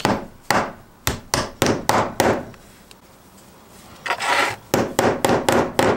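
Light, sharp taps of a claw hammer, held short near the head, driving a small steel insert into a 3D-printed plastic magnet housing: about seven taps, a pause with a brief scrape just after four seconds, then about six quicker taps near the end.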